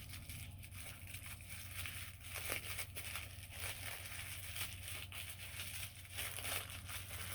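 Plastic packaging crinkling and rustling in irregular crackles as a small wrapped toy-doll accessory pack is opened by hand, over a faint steady low hum.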